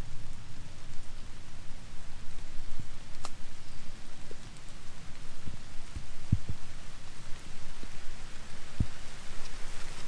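Steady rain falling, an even hiss, with a few short low thumps and one sharp click.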